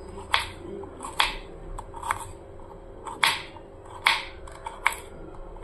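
Kitchen knife chopping through pieces of fresh coconut onto a wooden chopping board: about six sharp knocks, roughly one a second, with a few lighter taps between.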